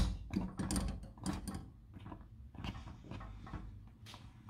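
Scattered light clicks and taps of kitchen utensils and cookware being handled, more frequent in the first second or so, over a low steady hum.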